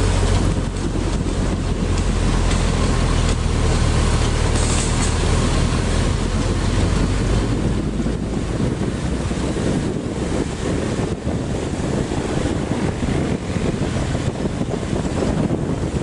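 Wind rushing over the microphone of a camera on the roof of a moving bus, with the bus's low engine drone underneath, plainest in the first half.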